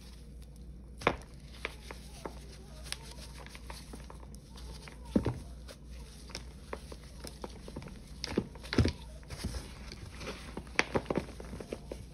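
Dried paste balls made from Ajax powder cleanser with Pine-Sol and Palmolive being squeezed and crumbled in gloved hands: irregular soft crunches and crackles with gritty powder rustling, the loudest crunches about five and nine seconds in.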